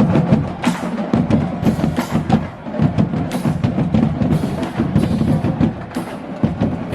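Marching band drumline playing a cadence: quick, sharp drum strokes over low bass drum hits.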